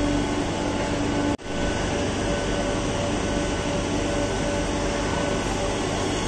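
Madrid Metro 8000-series electric train moving through an underground station: a steady rumble with several humming tones over it. The sound drops out briefly about a second and a half in.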